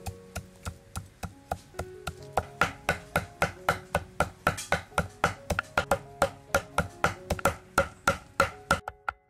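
Kitchen knife chopping fish on a wooden cutting board, mincing it to a paste: quick, even strokes about four a second, getting louder about two seconds in and stopping just before the end.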